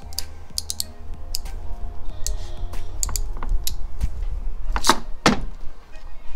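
Crimping pliers clicking and knocking as a butt connector is crimped onto a wire, with two louder knocks about five seconds in, over background music.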